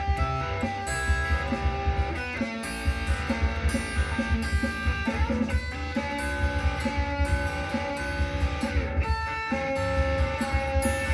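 Instrumental break of a rock song: electric guitar lead notes over strummed guitar, bass and a steady drum beat.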